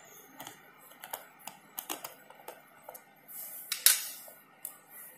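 Light clicks and taps of metal parts as a C-band LNB's screws and lid are worked loose, with one louder scrape and sharp click a little before four seconds in.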